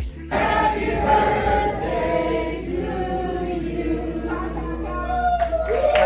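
A roomful of people singing together, many voices at once, holding sustained notes.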